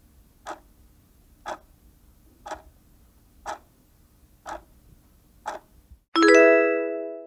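Countdown-timer clock-tick sound effect ticking once a second, six ticks over a faint steady hum. About six seconds in, as the countdown ends, a loud chime rings and fades.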